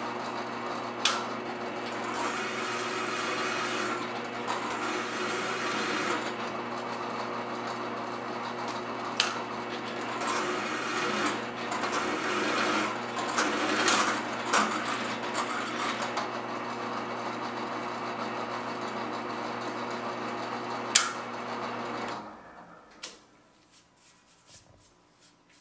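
Electric drill running under load, boring holes through steel with a steady motor hum and grinding cut, broken by a few sharp metallic clicks. The motor stops about 22 seconds in.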